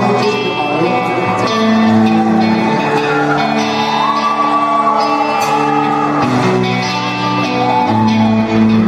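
Live band music played through a PA in a large hall: sustained chords held under a melody line that glides up and down.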